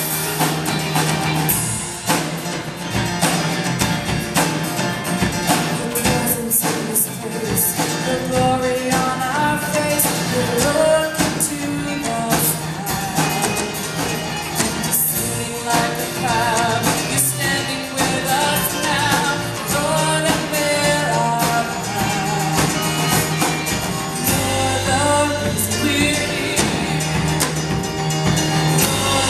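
A live contemporary worship band playing a song: drum kit, keyboard and guitars under singing voices.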